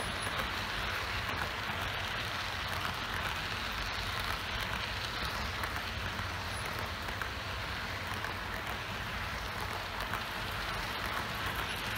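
Metal wheels of a long model-railway freight train of pocket wagons carrying semi-trailers rolling past close by on the track, a steady, dense rattle.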